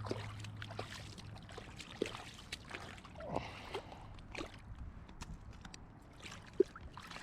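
Shallow creek water splashing in small, irregular bursts as a hooked freshwater drum thrashes near the bank, with one sharp, louder splash near the end.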